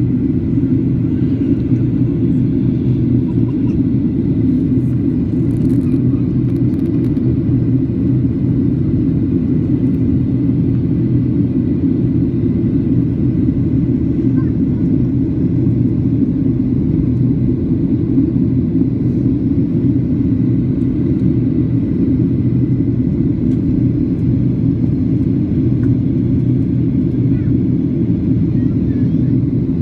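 Steady cabin noise inside a Boeing 737 airliner during its descent: a constant low rumble of the engines and rushing air, with a faint steady high tone above it.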